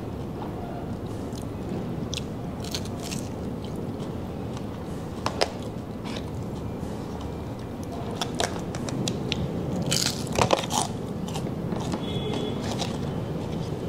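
A person biting and chewing crispy pata, deep-fried pork knuckle, with scattered sharp crunches and crackles of the crisp skin. The loudest bunch of crunches comes about ten seconds in.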